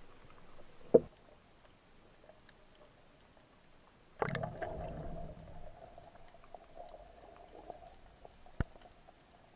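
Underwater sound through a diver's camera: a sharp click about a second in, a burst of water noise about four seconds in that leaves a faint steady hum, and another sharp click near the end.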